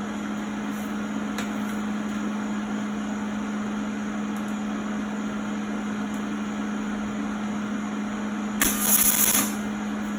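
Electric angle grinder running steadily at full speed after spinning up, with one louder, harsher burst lasting about a second near the end.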